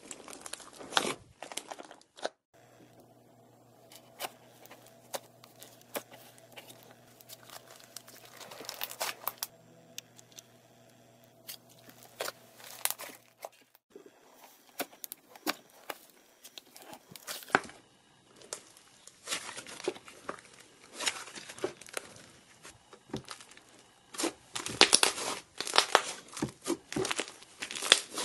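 Slime being squished, pressed and stretched by hand, with irregular crackling, popping and sticky tearing noises. The texture of the sound changes several times. A quieter stretch in the first half carries a faint steady low hum.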